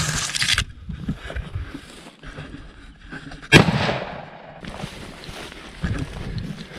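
A single rifle shot about halfway through, a sharp crack that trails off over about half a second, fired from a Howa 1500 bolt-action hunting rifle. Before it, dry grass rustles against the microphone.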